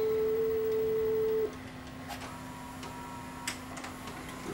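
Steady test tone from a TV/VCR combo's built-in speaker as a bars-and-tone test tape plays; it cuts off suddenly about a second and a half in as the tape is stopped. After that a low steady hum remains, with a couple of faint clicks from the VCR deck.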